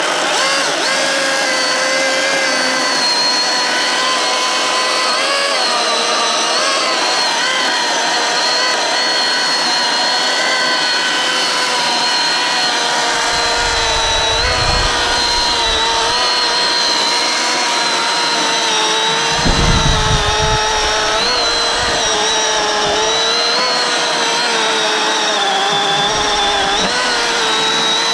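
Milwaukee M18 Fuel cordless electric chainsaw cutting steadily through a dry fallen log, its motor whine wavering a little in pitch as the chain loads up in the wood. A few brief low rumbles come through partway in.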